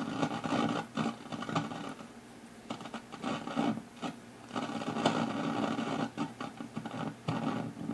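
Tube radio's speaker giving out scratchy static and crackle with no station coming in, surging and fading unevenly as its dirty switches and controls are worked.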